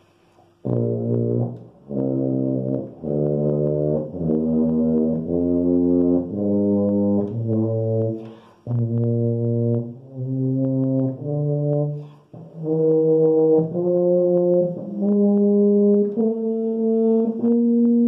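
A four-valve B-flat tuba played as a slow run of separate, sustained low notes with short breaths between them, climbing higher overall and ending on a longer held note. The owner says the instrument sounds good and plays in tune despite its dents.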